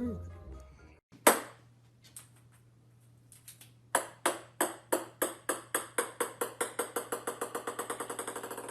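A small hard ball bouncing on a hard surface, its ringing taps coming ever faster and quieter as it settles. This follows one sharp click a little past a second in.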